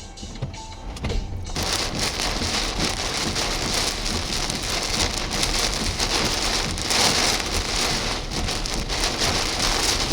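Heavy thunderstorm rain coming down hard as a dense, steady hiss that starts abruptly about a second and a half in, over a low rumble.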